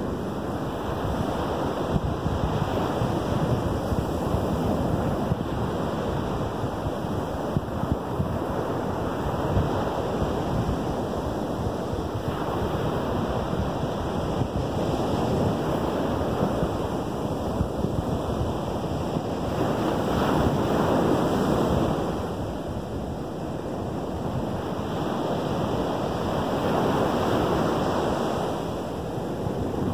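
Lake Michigan surf breaking and washing up onto a sandy beach. It is a continuous wash that swells louder as bigger waves come in, most strongly about two-thirds of the way through and again near the end.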